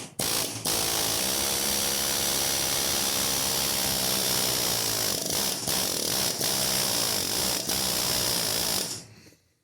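Pneumatic air hammer running in short trigger bursts, then hammering steadily for about eight seconds with a few brief breaks in the middle, striking a seized part of an alternator's aluminium end housing to loosen it.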